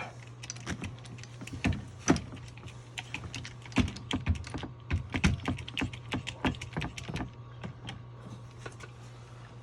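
Irregular light metal clicks and taps as a hydraulic crimping tool's jaws are worked into place over a cable end fitting, over a steady low hum.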